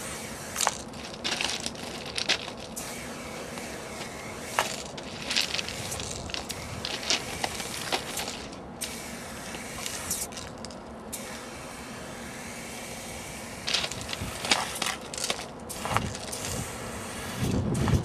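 Aerosol spray-paint can hissing in repeated bursts of varying length as letters are sprayed, with short pauses between strokes and a few sharp clicks.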